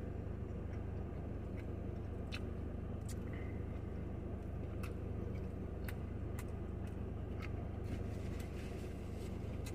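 A steady low hum, like an idling car engine, with a few faint scattered clicks.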